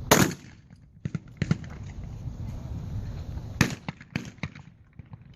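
Shotgun shots at trap: a loud shot right at the start and another about three and a half seconds in, with several fainter, more distant shots between and after.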